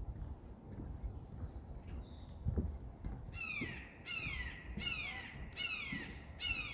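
A bird calling about five times in a row, one call every second or less, starting about three seconds in, each call sliding down in pitch. Low footsteps on a path thud throughout.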